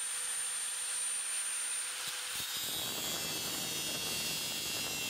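Angle grinder running with a steady high whine. About two and a half seconds in, its disc bites into the rusted steel shell of an M16 Stahlhelm and the sound turns to a rough grinding of metal.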